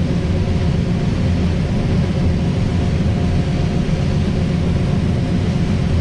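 John Deere combine running steadily while harvesting corn, heard from inside the cab as a loud, even low rumble of engine and threshing machinery.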